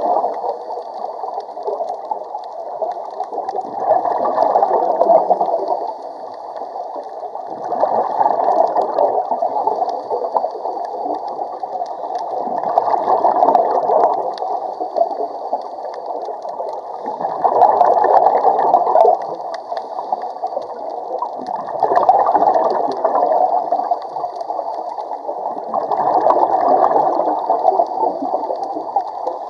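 Scuba diver breathing through a regulator underwater: a bubbling rush of exhaled air about every four to five seconds, with a faint high hiss between the rushes.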